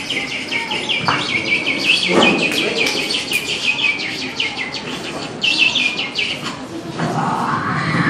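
A mimicry artist's voice imitating lovebirds: rapid, high chirps and tweets, many a second, with a brief pause past the middle.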